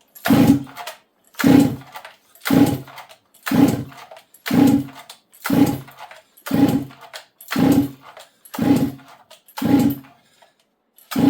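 Stihl 064 two-stroke chainsaw being pulled over on its recoil starter at full choke: about ten quick pulls, one a second, then a short pause and one more, the engine cranking without catching. A dry spark plug shows that it is not getting fuel into the cylinder.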